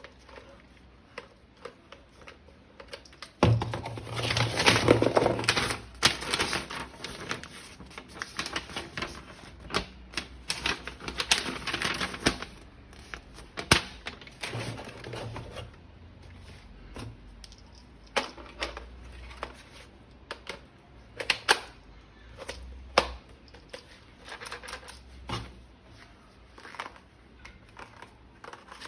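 Rapid plastic clicking and rattling from a toy gun being handled: a dense run of clicks for several seconds, then scattered single clicks.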